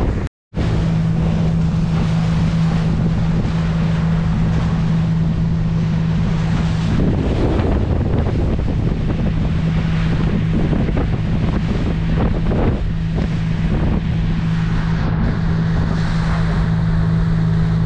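Motorboat underway: a steady engine drone under heavy wind buffeting on the microphone and the rush of water along the hull. The sound cuts out for a moment about half a second in.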